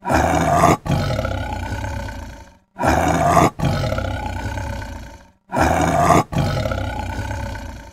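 A big cat roaring, the same call repeated three times about 2.7 seconds apart. Each call is a short loud burst, a brief break, then a longer call that fades away over about two seconds.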